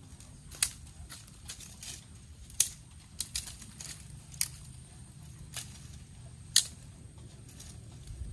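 Open fire crackling, with sharp irregular pops and snaps every second or so over a low steady rumble.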